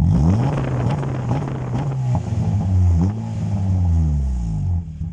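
Honda Mobilio's 1.5-litre four-cylinder engine revved from idle through a JS Racing aftermarket muffler that is clamped on without welding. The revs jump at the start and are held, blipped up again a couple of times, then fall back to idle near the end.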